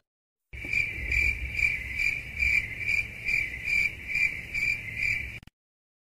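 Cricket chirping sound effect, the stock 'awkward silence' meme sound: a steady chirp pulsing about two to three times a second. It starts about half a second in and cuts off cleanly about five and a half seconds in.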